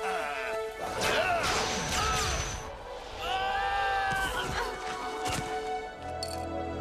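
Action-cartoon fight soundtrack: background music with several sharp hit and whoosh sound effects and short yells.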